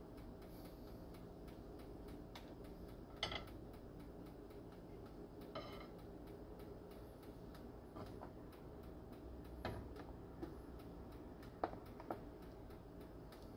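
Water simmering quietly in a frying pan while poached eggs are lifted out on a spoon, with a few light knocks of the spoons against the pan, one ringing briefly, about 3 and 6 seconds in and a few more near the end. A steady fast ticking runs underneath.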